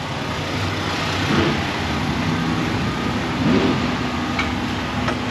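Vehicle engines running steadily with a low drone, swelling briefly twice, with a faint click or two near the end.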